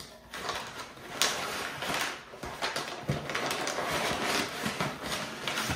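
Irregular rustling and clicking handling noises, with a louder burst about a second in.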